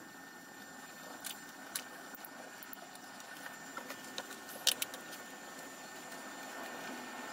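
A few light clicks and taps from handling a framed nail-and-thread string art board, the loudest little cluster a bit past halfway, over a steady background hiss.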